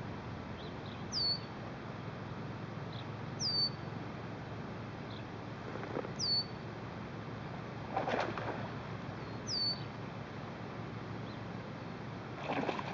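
A bird gives a short, high whistle that slides downward, repeated every two to three seconds over a steady low background rush. There is a brief rustle about eight seconds in and another near the end.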